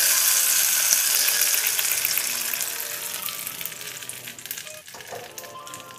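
Hot tempering oil with black mustard seeds and curry leaves poured onto coconut chutney, sizzling loudly at first and dying away over about five seconds as the oil cools into the chutney.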